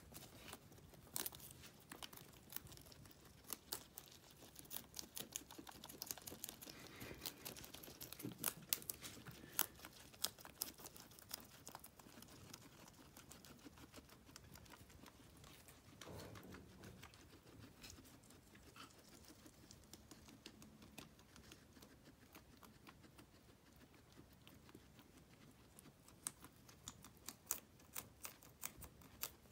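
Guinea pigs chewing a long blade of grass: many faint, crisp clicks of small teeth biting through the leaf, coming in quick runs, with a soft rustle of the leaf.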